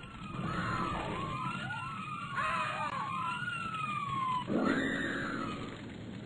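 Several fire-engine sirens wailing at once, their rising and falling tones overlapping, over a low rumble. A louder rushing noise comes in about four and a half seconds in.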